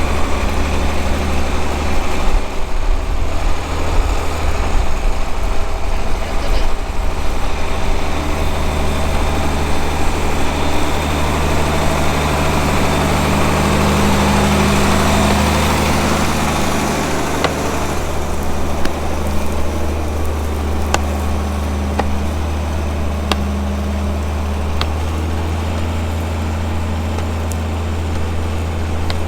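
Tractor diesel engine running steadily, growing a little louder around the middle. A few faint clicks come near the end.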